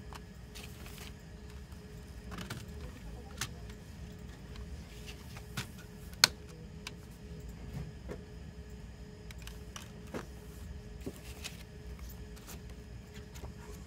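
Plastic CD jewel case being handled: scattered clicks and taps as the hinged disc tray is turned and a disc is pressed on its hub, with one sharp click about six seconds in. A faint steady hum runs underneath.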